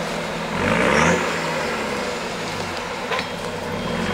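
Off-road buggy's engine idling, revved briefly about half a second in and settling back to a steady idle.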